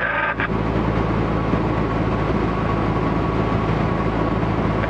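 Cessna 150's four-cylinder Continental O-200 engine and propeller droning steadily on final approach, heard inside the cabin.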